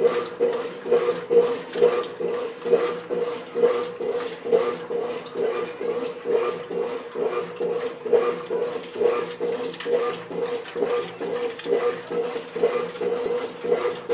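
Brastemp 5 kg washing machine agitating its load: a steady motor hum with a rhythmic swish of water and clothes, a little more than one stroke a second.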